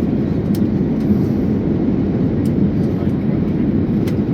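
Steady low cabin noise of an Airbus A321neo airliner in flight on approach: engine and airflow noise heard from inside the passenger cabin, with a few faint ticks.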